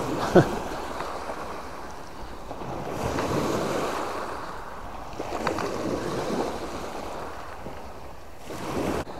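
Small sea waves breaking and washing up a pebble beach, swelling twice as waves come in.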